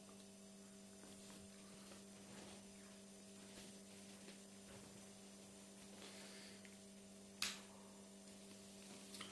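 Near silence with a faint steady electrical hum, and one short sharp tap or click about seven and a half seconds in.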